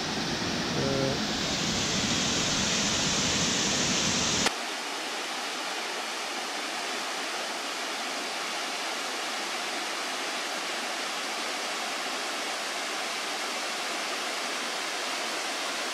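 Steady rushing of a mountain waterfall cascading down rock ledges. For the first four seconds or so a deeper rumble sits under it, then it changes abruptly to a thinner, even rush.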